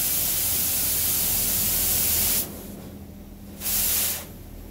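Touchless automatic car wash's high-pressure water jets spraying a GMC Savana cargo van, heard from inside the cargo area as a steady hiss. The spray cuts off about two and a half seconds in, returns briefly for half a second, then stops again.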